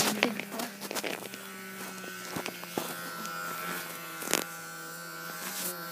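Electric hair clippers buzzing steadily as they run over a dog's fur, with small handling clicks and a sharp knock about four seconds in.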